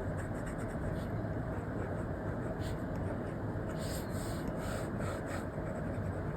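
Steady background noise with short scratchy strokes of an Apple Pencil tip dragged across an iPad's paper-textured screen protector, most of them clustered a little past the middle.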